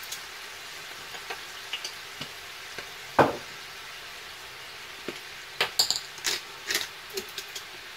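Half-defrosted prawns sizzling in oil in a frying pan, a steady hiss with the water from the thaw. There is a single knock about three seconds in and a few sharp clicks and clinks near the end.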